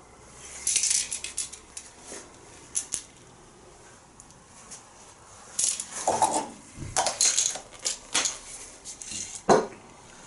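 Aerosol spray-paint can hissing in short bursts, then a series of metallic clinks and knocks as the can and metal panels are handled.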